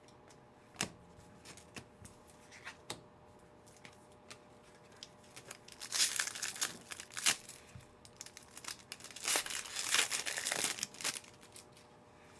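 Foil wrapper of a football trading card pack being torn open and crinkled, in two noisy bursts about six and ten seconds in, after a few light clicks.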